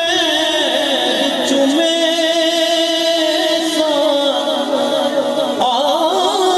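Devotional Islamic kalam: a voice singing a slow, melismatic melody with wavering, ornamented pitch over steady held tones.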